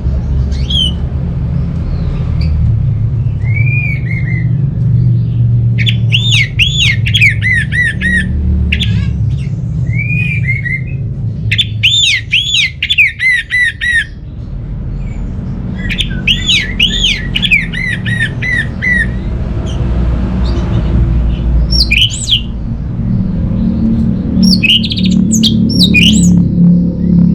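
Orange-headed thrush singing: bursts of rapid, looping whistled notes every few seconds, some single short calls between them, over a steady low rumble.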